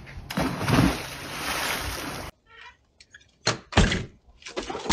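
A splash and a rush of water as a person dives into the sea. It cuts off suddenly, and after a short quiet come two heavy thumps in quick succession.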